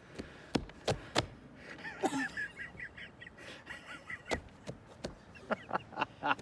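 Scattered sharp knocks and taps on an RV roof, three in quick succession about half a second in and a cluster more near the end, with faint high chirping in between.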